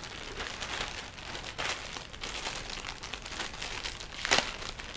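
Clear plastic packaging bag crinkling as it is handled and pulled open, with one sharper, louder crackle about four seconds in.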